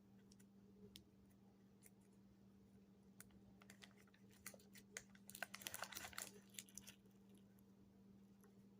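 Near silence with a faint steady hum. In the middle comes a flurry of faint, quick clicks and rustles, as small jewelry pieces and their wrapping are handled.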